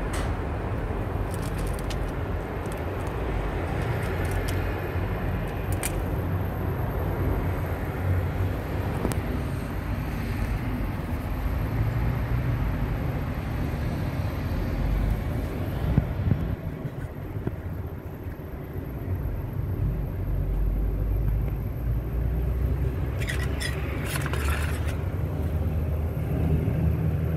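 Steady low rumble with a hiss of outdoor background noise, and a few short higher sounds near the end.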